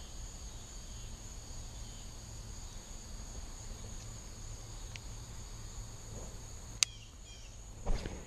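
Steady high-pitched drone of insects. A single sharp click comes about seven seconds in, and a short whoosh of rod handling follows near the end.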